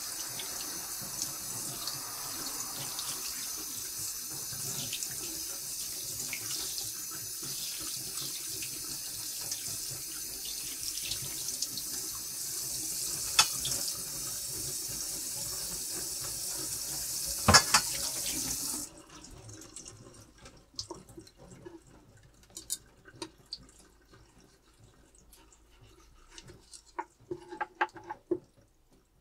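Kitchen tap running steadily into a sink, with two sharp knocks partway through, the second the loudest. The water cuts off about two-thirds of the way in, leaving light clicks and scrapes of handling.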